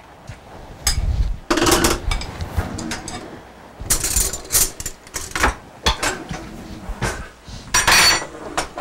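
Kitchen dishes and utensils clattering and clinking as they are handled, in a few short bursts.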